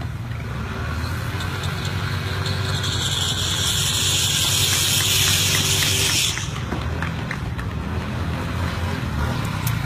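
Small motorbike engines running with a steady low rumble. A loud hiss joins about two and a half seconds in and cuts off suddenly about six seconds in.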